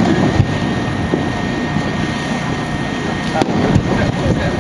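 Fireworks shells bursting in the sky with a few sharp bangs, about half a second in and again around three and a half and four seconds. Under them runs the steady noise of a crowd's voices.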